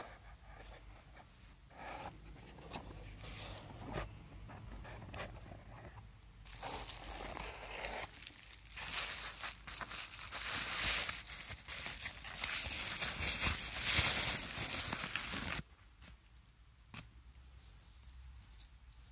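Plastic bubble wrap being handled and pulled open by hand, crinkling. A few scattered crinkles and clicks come first, then a long stretch of loud, continuous crinkling that cuts off abruptly near the end.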